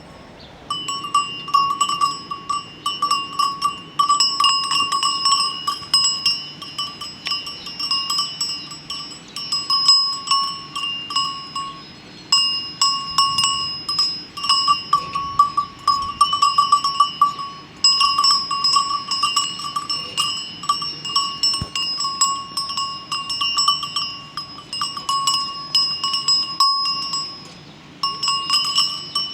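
Cowbells on grazing cows clanking in a dense, irregular jangle of ringing strikes. The jangle starts abruptly about a second in and pauses briefly a few times.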